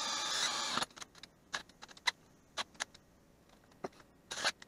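DeWalt 20V cordless drill boring through steel angle iron clamped in a bench vise, running steadily and then stopping a little under a second in. Scattered clicks and knocks follow as the drill and metal are handled.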